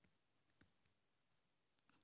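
Near silence, with three very faint ticks.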